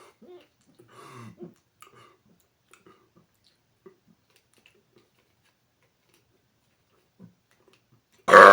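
A man's very loud forced burp starts near the end, pushed out as hard as he can for a decibel reading, after a few seconds of faint mouth and throat sounds.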